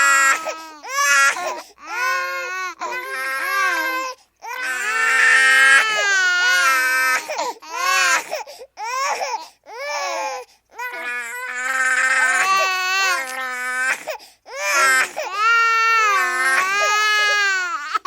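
A baby crying: a string of long, wavering wails, one after another, broken by short gaps for breath.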